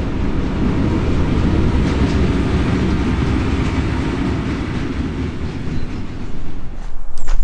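A train running past on the railway line, a steady rumble with rattling that dies away near the end, followed by a few sharp clicks.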